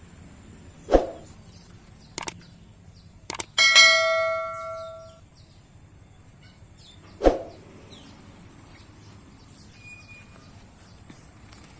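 Two sharp knocks about six seconds apart. Between them come a couple of light clicks, then a metallic clang that rings out like a bell and fades over about a second and a half.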